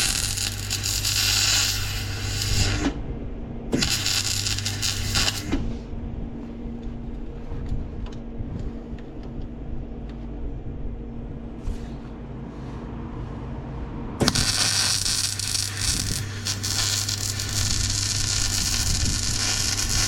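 MIG welder arc crackling and sizzling in three runs: one that stops about 3 s in, a short one from about 4 to 5.5 s, and a longer one from about 14 s on. Between runs the welder's steady hum is heard.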